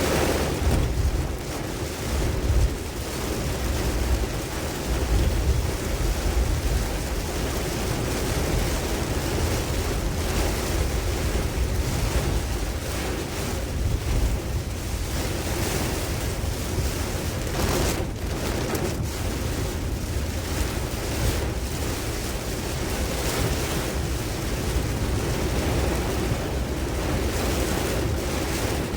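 Tropical-storm wind blowing in gusts, with heavy rumbling wind noise on the microphone over a constant rushing hiss.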